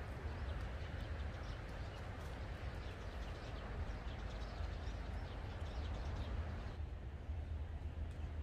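Outdoor ambience: a steady low rumble with faint, scattered bird chirps. The higher hiss drops away about seven seconds in.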